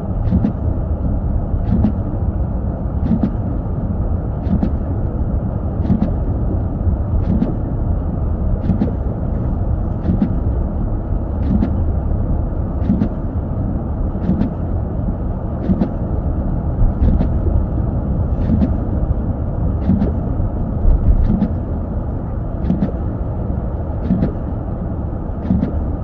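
Steady low road rumble inside a moving car's cabin, from tyres on the snow-covered road and the engine. The windshield wipers sweep about every one and a half seconds, with a brief knock at each stroke.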